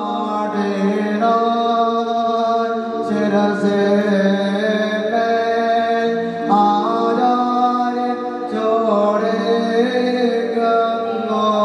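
Slow chant-like singing in long held notes over a sustained musical accompaniment, the pitch stepping to a new note every second or two.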